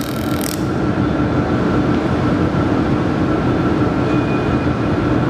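Handheld laser welder working along a sheet-metal seam with a fine hiss that cuts off about half a second in as the weld stops, leaving a steady machine drone.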